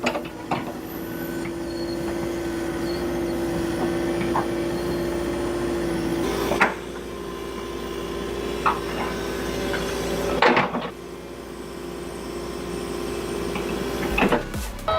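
A machine's engine hums steadily, with a few sharp knocks and clunks scattered through.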